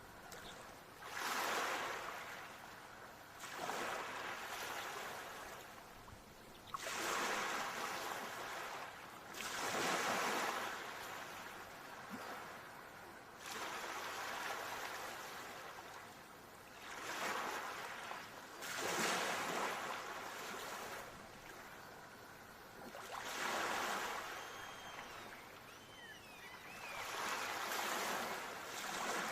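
Ocean waves breaking and washing up on a shore, each swell rising and falling away every few seconds. Faint high gliding calls come in briefly near the end.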